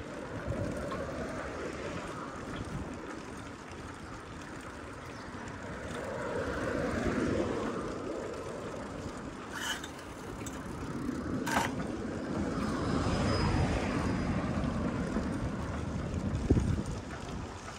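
Street traffic and road noise heard from a moving bicycle: a steady rumble that swells twice. Two sharp clicks come about two seconds apart near the middle, and a short thump near the end.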